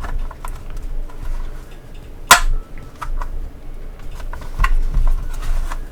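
Plastic sections of a NECA Pillar of Souls toy being handled and pushed together: scattered light clicks and knocks, with one sharp snap a little over two seconds in.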